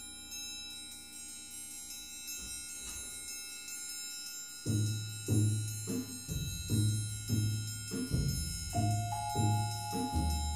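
A percussion quartet playing tuned percussion: soft, sustained ringing notes at first, then about halfway through a deep note struck in a steady rhythm about twice a second, with high ringing notes over it.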